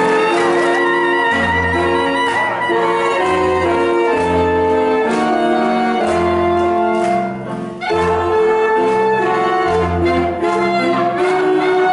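Lively dance tune played by a woodwind ensemble of saxophones and clarinet over a pulsing bass line.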